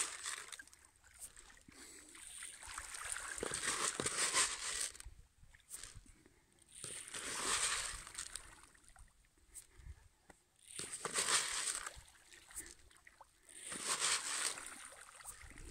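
Rainbow trout splashing and churning at the pond surface as they take feed, in swells of splashing about every three to four seconds.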